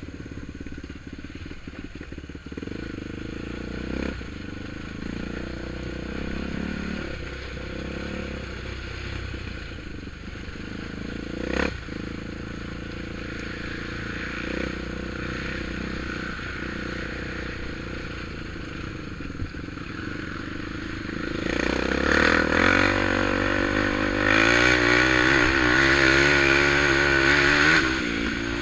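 ATV engine running at low speed, with one sharp knock about halfway through. In the last seven seconds it gets louder and its pitch wobbles up and down as it works harder.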